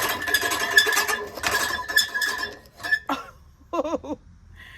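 Reel lawn mower's spinning blade reel clattering and ringing loudly against the bed knife for about three seconds, then stopping. This loud, annoying noise means the reel is set tight enough against the bed knife.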